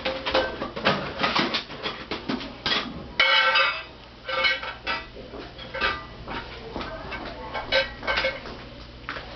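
Toy dishes and play food clattering as they are handled and set down, a run of quick knocks and clicks. A short high-pitched sound stands out about three seconds in.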